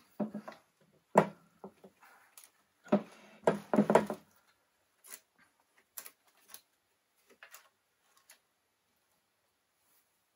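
Metal clunks and knocks as a Lycoming O-360 crankshaft is gripped and shifted in its open crankcase half. There is a sharp knock about a second in and a cluster of heavier clunks around three to four seconds in, then a few light clicks.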